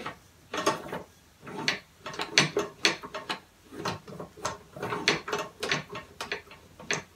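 Homemade five-cylinder compressed-air engine turned over slowly by hand at its pulley, its valve gear and moving parts clacking in irregular knocks, about two a second.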